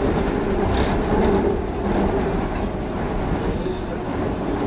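Seoul Subway Line 2 train running at speed, heard from inside the car: a steady rumble of wheels on rail under a humming motor tone, with one sharp click about a second in.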